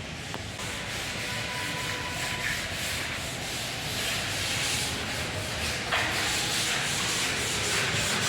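Abrasive paper rubbing over dried wall putty in a steady sanding sound, a little louder from about six seconds in.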